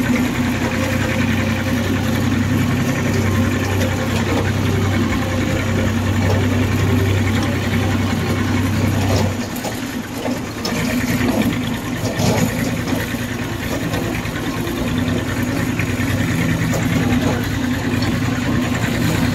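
Massey Ferguson 240 tractor's three-cylinder diesel engine running steadily while driving. Its note drops briefly about halfway, then picks up again.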